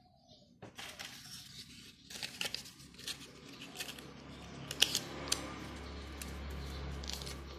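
Irregular soft crackling and rustling of hands pinching and pleating the dough of a vegetable-filled steamed bun (salapao), with a few sharper clicks about five seconds in. A low steady hum comes in around the middle.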